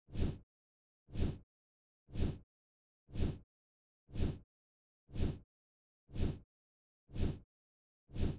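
Background music: a short swelling pulse, heaviest in the bass, repeated evenly once a second with silence between.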